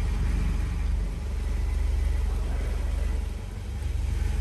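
Volvo 940 engine idling, a steady deep rumble with an even beat that briefly drops quieter about three seconds in.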